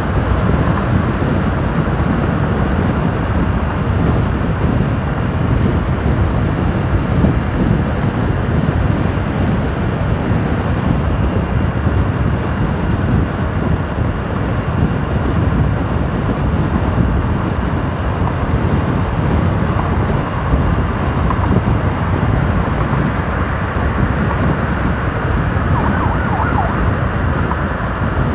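Motorcycle riding at steady highway speed: engine and tyre noise under a constant rush of wind on the microphone.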